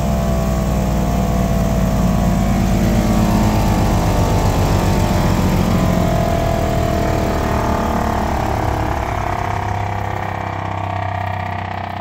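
35 hp Briggs & Stratton Vanguard V-twin petrol engine of a towable woodchipper running steadily, growing somewhat quieter in the last few seconds.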